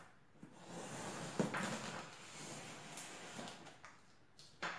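Knife slitting the packing tape along a cardboard box's seam: a faint scraping and rustling with a few light knocks.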